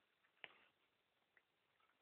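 Near silence, broken by one sharp click about half a second in and a fainter tick about a second later.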